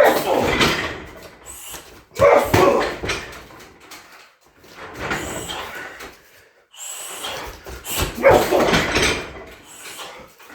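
Roundhouse kicks landing on a 60 kg heavy bag, about four hits a couple of seconds apart, each a sharp smack that rattles on for about a second.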